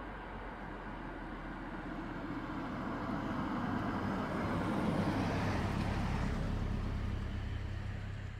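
A car passing by on the road, its engine and tyre noise growing louder to a peak about halfway through and then fading away.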